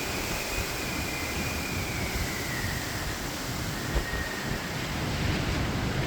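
Storm wind blowing steadily, with a thin, high whistle carried on it. The whistle wavers in pitch, sags lower about two seconds in, then fades and briefly returns around four seconds in.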